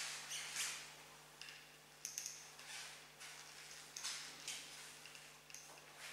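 Handheld whiteboard eraser rubbing across a whiteboard in repeated wiping strokes, a faint swish with each pass, about one stroke every half second to a second.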